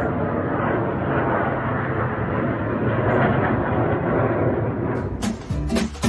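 Three aircraft flying over together, a steady, loud engine noise. Strummed acoustic guitar music starts about five seconds in.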